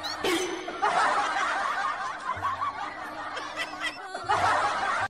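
Canned audience laughter, a crowd of people chuckling, in two bursts: about a second in and again near the end.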